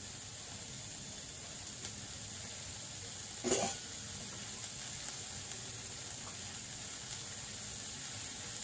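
Chopped vegetables (French beans, carrot, peas, onion) sizzling steadily and quietly in oil in a kadai. One short cough-like sound about three and a half seconds in.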